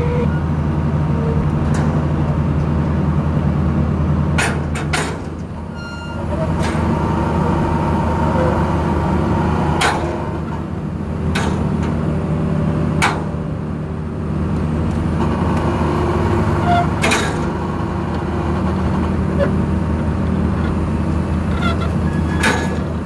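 Excavator diesel engine running steadily under load, heard from inside the cab. It eases off briefly about five seconds in and again around eleven seconds, with sharp metallic knocks and clanks scattered through.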